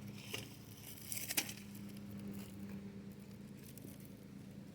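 Brick being pulled out of a forge: a few light knocks and a scrape, the sharpest knock about a second and a half in, over a steady low hum.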